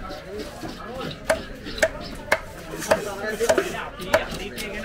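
Heavy meat cleaver chopping a large cobia into chunks on a wooden chopping block, a sharp chop about every half second.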